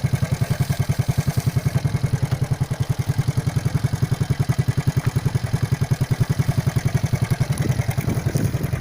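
Small engine running steadily at low speed with an even chugging beat, about eight to nine pulses a second.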